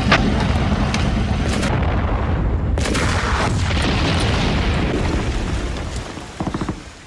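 Battle-reenactment gunfire and explosions. There is a sharp shot at the start and another about one and a half seconds in, then a loud boom almost three seconds in that fades in a long rumble. A quick rattle of shots comes near the end.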